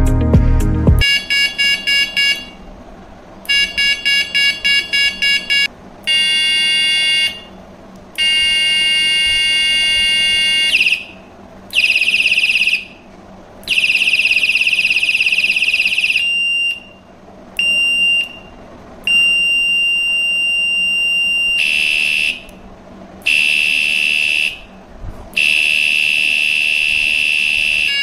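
Electronic bicycle horn built into a rechargeable LED headlight, played through its horn modes one after another: bursts of rapid beeps, then steady high-pitched tones and shorter beeps, each separated by a brief pause.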